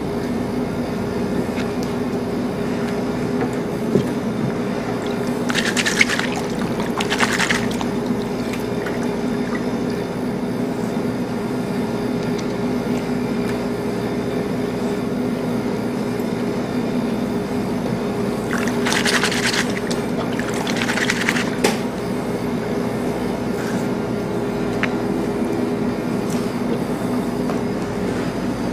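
Water sloshing and splashing in a basin as leeks are swished about to wash the sand out of them, with four brief louder splashes, two close together and then two more much later. A steady low hum runs underneath.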